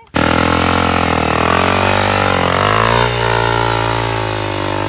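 Honda CRF dirt bike's single-cylinder engine revving hard under load while the rear wheel spins in soft sand, bogged down and digging in. The revs sag about two and a half seconds in and pick up again.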